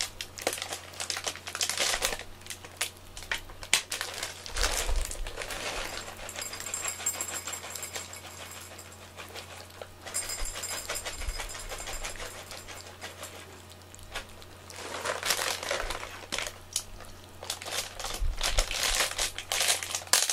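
Cat licking a soft puree treat (Churu, tuna and scallop) off a small dish: quick, wet, clicking tongue laps close up, coming in bouts that are busiest near the start and again toward the end.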